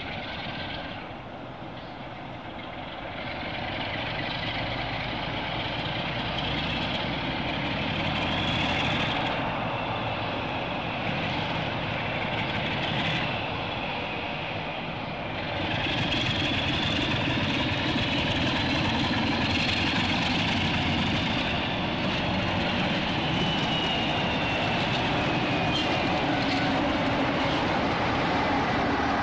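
Diesel locomotive engines running as a locomotive-hauled train pulls out: a steady engine rumble that grows louder twice, with a high whine that rises and then falls in pitch.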